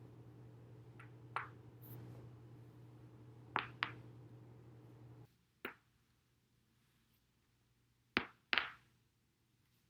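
Back joints cracking as a person rolls their spine over a foam roller: a series of sharp pops, several coming in quick pairs, the loudest pair near the end. A low steady hum underlies the first half and stops abruptly about five seconds in.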